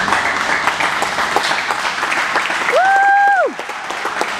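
Ringside audience applauding, a steady patter of many hands clapping. About three seconds in, one short high note, like a whistle or a cheer, slides up, holds, and drops away.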